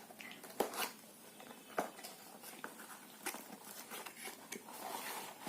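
Packaging being handled and opened to unbox a hair styler: scattered sharp clicks and crinkles, with a longer rustle near the end.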